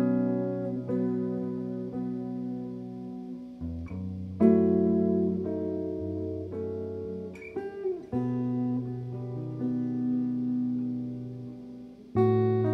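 Electric guitar played solo with a clean tone: slow chords struck every few seconds and left to ring, with a short sliding note a little past halfway.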